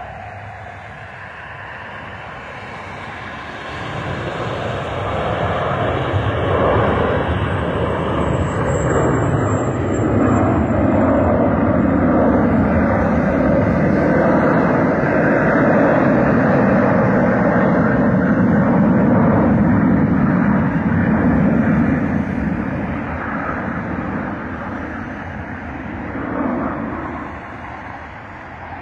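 Jet airliner's engines passing low overhead: a broad rumble that builds over a few seconds, holds loud for about fifteen seconds, then fades away near the end. A thin high whine falls slightly in pitch as the plane approaches.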